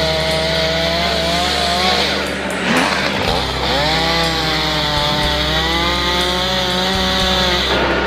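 Gas chainsaw cutting through a small plum tree's trunk, its engine pitch wavering under load, dipping sharply between two and three seconds in and climbing back. The saw stops near the end, with background music underneath.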